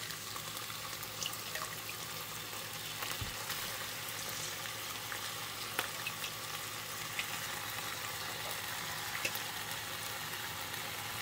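Marinated steak strips sizzling steadily in a hot skillet with sliced bell peppers and onions, with a few faint light clicks scattered through.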